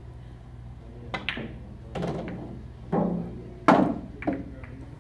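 Pool balls knocking on a pool table: about six sharp clacks and thunks from about a second in, the loudest about three and a half seconds in.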